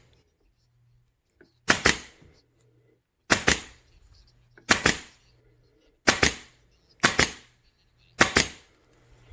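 Pneumatic upholstery stapler (meite MT7116LN, 22-gauge 71-series) firing staples into a chair, six shots about a second to a second and a half apart. Each is a sharp snap with a short hiss of air trailing off.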